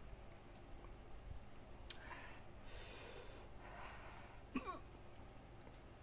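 Quiet sounds of a person eating rice and fried food with his fingers: soft chewing and breaths with a few small clicks, and one brief pitched sound late on.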